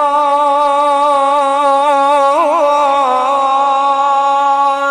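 A male reciter's voice holds one long, drawn-out note in melodic Quran recitation (tilawat), on a steady pitch with a brief wavering ornament about halfway through.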